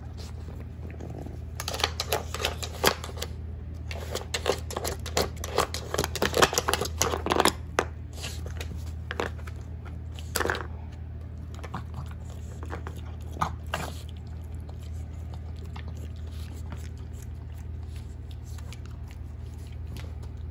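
Plastic treat puzzle being worked by a Boston Terrier puppy: quick runs of clicks and knocks as its nose and paw push the hard plastic blocks and bowl around, thick in the first half, then only a couple of single knocks. A steady low hum runs underneath.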